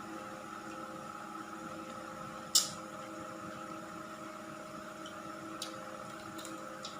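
Steady hum made of several fixed tones, with one sharp, high click about two and a half seconds in and two fainter clicks near the end.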